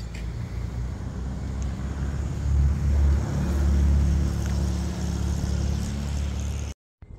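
A motor vehicle passing close by with a low engine rumble, loudest about midway, then cutting off suddenly near the end.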